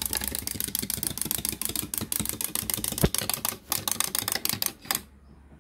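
Wind-up toy chick's clockwork mechanism clicking rapidly as it hops. The clicks slow and stop about five seconds in as the spring runs down.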